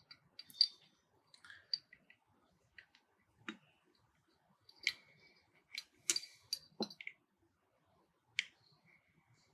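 Scattered light metallic clicks and taps as a Bendix Zenith carburetor and its float are handled while the float height is checked. The clicks come at irregular intervals, and a few of them ring briefly.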